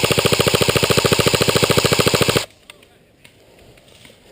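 Airsoft electric rifle, the VFC SCAR-L, firing a long full-auto burst of rapid, evenly spaced shots that stops suddenly about two and a half seconds in.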